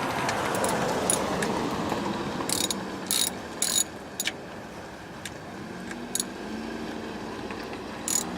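Hand ratchet wrench loosening the water pump bolts on a 1963 Chevrolet truck engine: a rasp of ratcheting, then several sharp metallic clinks of the tool on the bolts.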